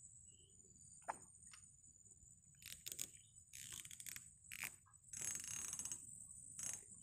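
Fishing reel clicking and whirring in several short bursts as a line is cast and reeled in, with a sharp click about a second in, faint over a steady high background drone.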